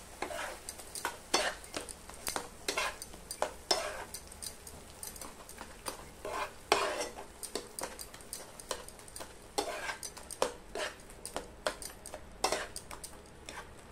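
Flat metal spatula scraping and stirring mashed banana and sugar against a frying pan, in irregular strokes about twice a second, over a light sizzle of the ghee.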